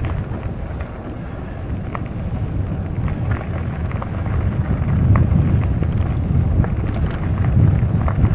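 Wind buffeting the microphone: a loud, gusting low rumble that swells and eases, with a few faint clicks over it.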